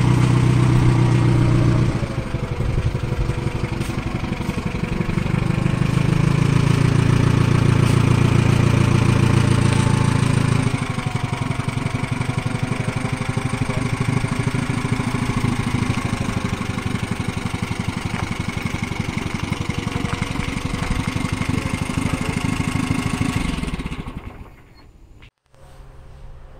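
Engine of an old Datsun forklift running while it moves a battery pack on a wheeled cart. It revs higher twice in the first half, then runs steadily at a lower speed before dying away near the end.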